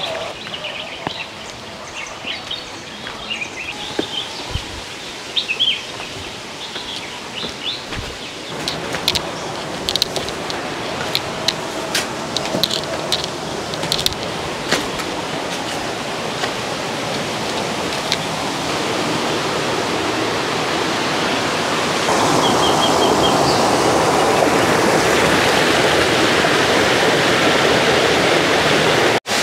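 Birds chirping over outdoor ambience, with scattered sharp clicks in the middle. A steady rush of flowing water builds up through the second half and is loudest near the end.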